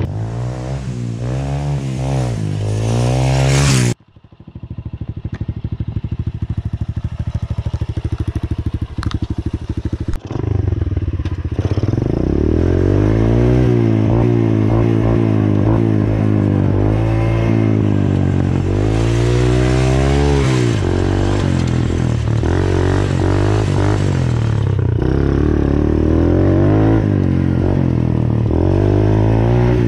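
Small dirt bike engine revving up and down as it is ridden. It breaks off sharply about four seconds in, runs at a steady low speed for several seconds, then rises and falls in revs over and over again.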